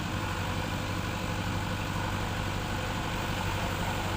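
Heavy diesel engine of earthmoving machinery running steadily with an even low hum.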